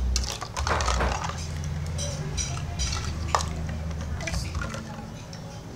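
Hard plastic toy fish and a plastic scoop net clattering and knocking against each other and a plastic basin of water, in scattered clicks with water sloshing about a second in.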